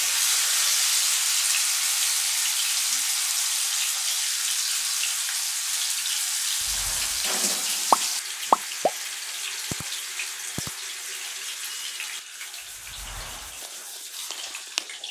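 Oil sizzling around masala-coated seer fish (vanjaram) steaks shallow-frying in a nonstick pan on a low flame. The steady hiss slowly quietens, with a few sharp pops about halfway through.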